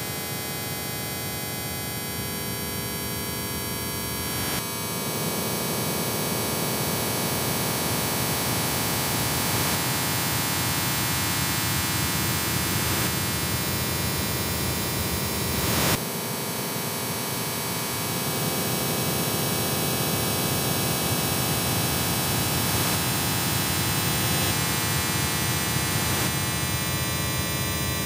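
Industrial noise music: a thick wall of hiss layered with many steady droning tones. The texture cuts abruptly to a new one about four and a half seconds in, and again after a short swell about sixteen seconds in.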